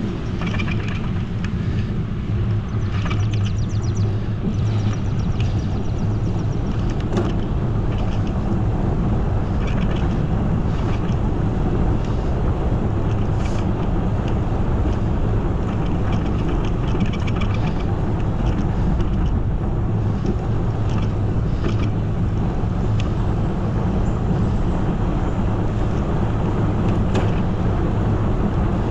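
Steady rumble of wind and road noise while riding a bicycle, with a few faint clicks and rattles here and there.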